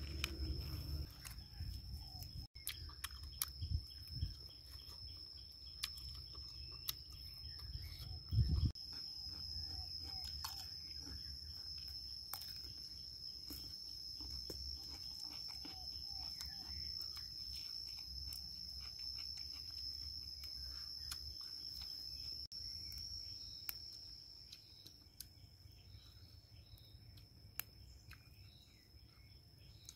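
Steady high-pitched insect drone over a low rumble, with scattered small clicks and rustles and a dull thump about eight seconds in; the drone and rumble fade near the end.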